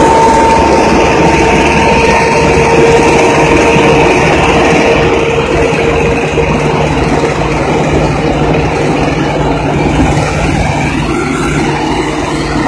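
Erkunt Servet 80.4 E+ tractor's diesel engine running loud and steady at close range, with a steady hum in it. It grows a little quieter after about five seconds.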